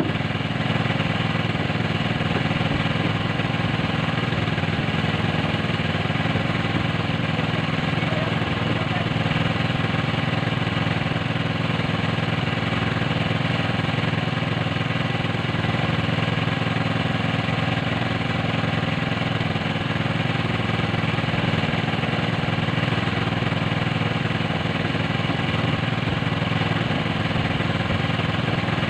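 A small engine running steadily at an even speed, making a constant hum.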